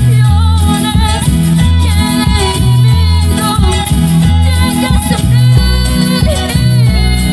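Live Latin praise music: a woman singing lead over a band with a bouncing bass line that changes note about every half second.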